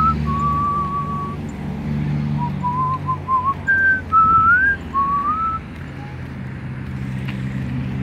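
A person whistling a tune in short phrases, one pure note sliding up and down between them, over a low steady hum.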